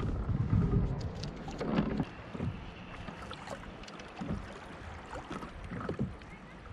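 Water lapping and slapping against a kayak hull at sea, with wind rumbling on the microphone for the first two seconds and a few light knocks and splashes after.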